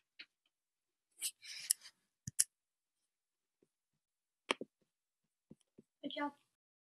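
Scattered faint clicks and brief rustles of handling noise: about half a dozen separate clicks, a short rustle a little over a second in, and a slightly longer scrape near the end.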